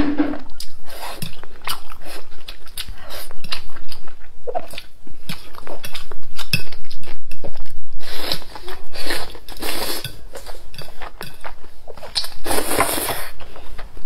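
Close-miked eating sounds: a person slurping up wide noodles in chili oil and chewing with wet smacks. Longer, louder slurps come about eight to ten seconds in and again near thirteen seconds.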